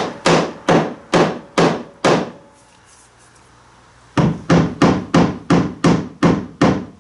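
Claw hammer tapping the end of a wooden seat riser, driving it along to butt up against the boat's frame. Two runs of quick, even taps, about three a second, with a pause of about two seconds between them.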